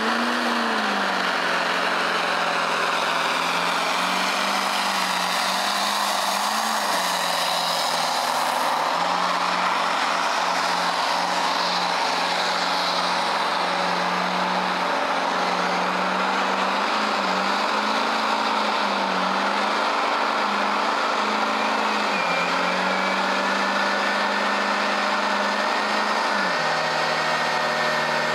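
Diesel pickup truck doing a burnout: the engine is held at high revs at a nearly steady pitch that wavers a little, over the hiss of spinning, smoking tires. The revs drop a step near the end.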